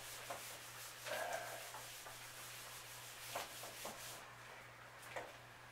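Whiteboard eraser wiping across a whiteboard in quick, faint back-and-forth strokes that stop about four seconds in, with a light knock near the end.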